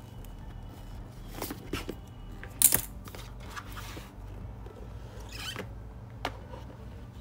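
Cardboard smartphone box being opened by hand: light scratches and scrapes as the seal is slit, a sharp tap a little under three seconds in, then a papery rustle as the inner box slides out of its sleeve, over a steady low hum.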